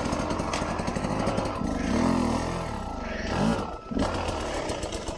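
Sherco 250 SER two-stroke dirt bike engine running and revving in rising and falling bursts, with knocks of the bike against brush; the engine noise drops away right at the end.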